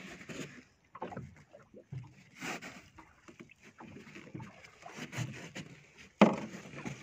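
Scattered knocks and handling noises on a small fishing boat as a fish is hauled aboard on a hand line, with a loud sudden thump on the deck about six seconds in.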